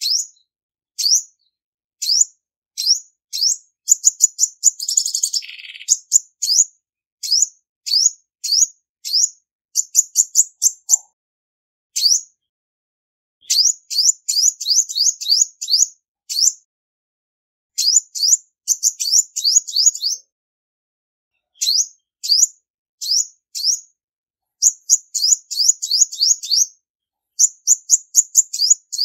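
Female olive-backed sunbird calling: sharp, high chip notes, some single and some in quick runs of several, with one longer buzzy note dropping lower about five seconds in.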